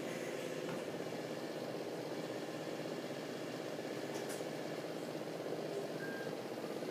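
Steady mechanical rumble of machinery running, with a faint short beep-like tone about six seconds in.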